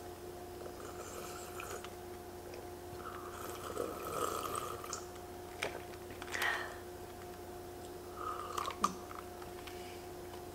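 Quiet drinking from a glass of ice water: soft sips and swallows, with a couple of light clinks of ice against the glass a little past the middle. A steady low hum runs underneath.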